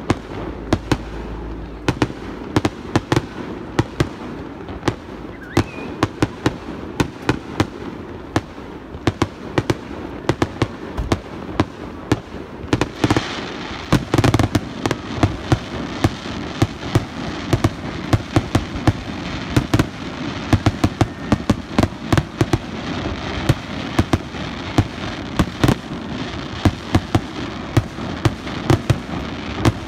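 Fireworks display: a rapid string of bangs from bursting aerial shells, several a second, over a steady crackle, growing denser about thirteen seconds in.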